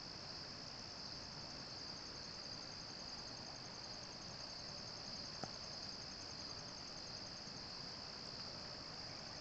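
Steady high-pitched chorus of crickets, a rapid pulsing trill, with one faint tick about five and a half seconds in.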